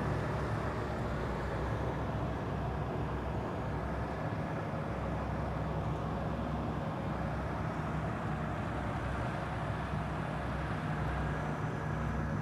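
Crawler bulldozer's diesel engine running steadily with an even low drone.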